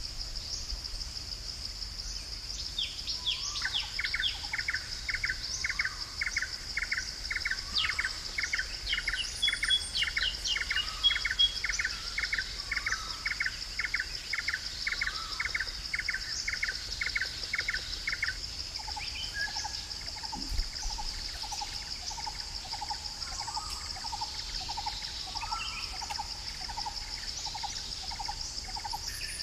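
Rainforest birds calling over a steady high-pitched insect drone: one bird repeats a short note about twice a second for some fifteen seconds, then a lower, faster series of notes takes over for the last ten seconds, with occasional falling calls in between.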